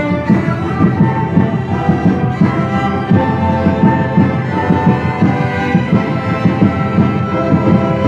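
Orchestra playing, with a bowed string instrument sounding loud and close: sustained pitched notes over a busy, pulsing low end.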